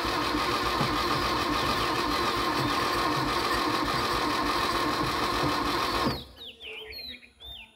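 Starter motor of a long-stored Toyota Corolla KE36 cranking the engine steadily for about six seconds, then stopping suddenly.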